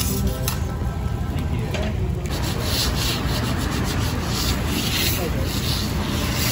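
Metal scraper dragged across a steel hibachi griddle, clearing off leftover rice: repeated rasping strokes, about two to three a second, growing strong about two seconds in.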